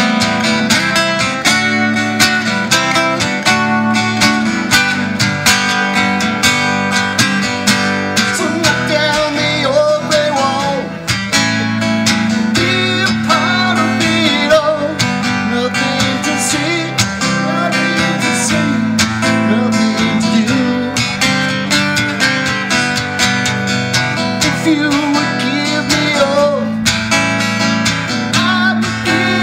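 Solo acoustic-electric guitar strummed steadily in a live rock song, with a man singing in places.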